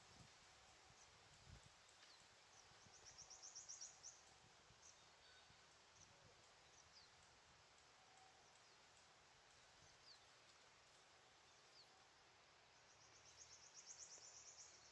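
Near-silent outdoor ambience with faint, scattered high bird chirps that slide downward, and two rapid high trills that swell and fade, about three seconds in and again near the end.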